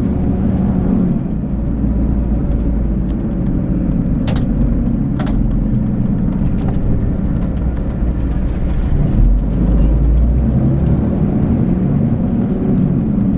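Volvo B12B coach's 12-litre six-cylinder diesel engine running steadily, with a low rumble underneath. Two sharp clicks come about four and five seconds in.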